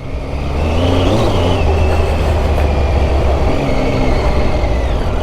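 Triumph Tiger 800's three-cylinder engine running as the motorcycle is ridden off-road over sandy dirt tracks. The engine note rises a little about a second in and then eases back.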